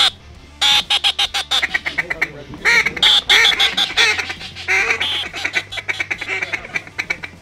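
Hand-blown duck call sounding in rapid runs of short, quacking notes, several runs in a row, calling to a flock of teal in flight.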